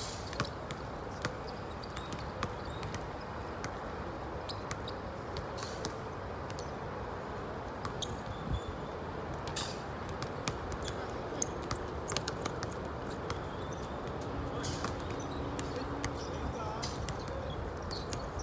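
Basketballs bouncing on a court: irregular sharp thuds over a steady background hiss.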